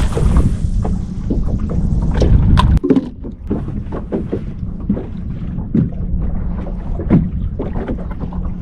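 Small fishing boat sounds: a steady low hum, with wind rumbling on the microphone that drops off suddenly about three seconds in, and many irregular small knocks and clicks of gear being handled in the boat.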